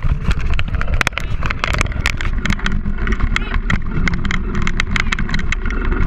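Wind buffeting a handlebar-mounted microphone as tyres roll fast over a dirt trail, with frequent sharp clicks and rattles from the rig being pulled along.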